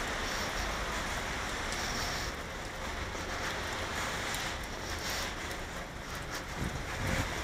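Steady hiss of a rain-wet city street, with traffic and wet surfaces giving an even noise. Wind rumbles on the microphone near the end.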